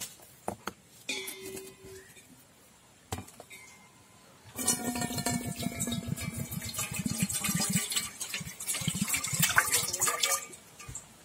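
Tender coconut water pouring in a stream from a hole in the coconut into a stainless steel pot. The splashing starts about four and a half seconds in, its pitch climbs slowly as the pot fills, and it stops shortly before the end. A few light knocks come before it.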